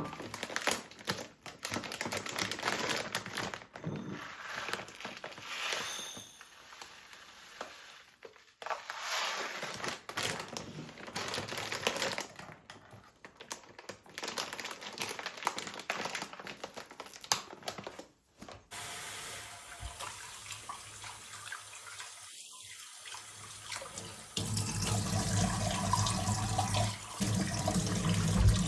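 Water running from a tap into a sink, with scattered clicks and knocks of household handling in between.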